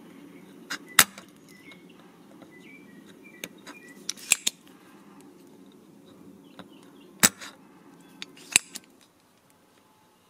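Sharp, separate clicks and taps of small tools on a remote's circuit board while a push button is desoldered, about nine in all, in clusters. A steady low hum runs under them and stops near the end.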